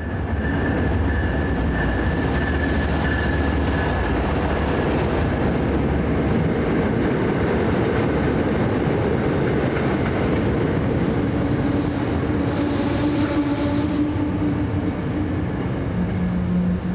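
MBTA commuter rail train running close by along the platform, a loud steady rumble of wheels on track. A thin high-pitched squeal sounds over the first few seconds.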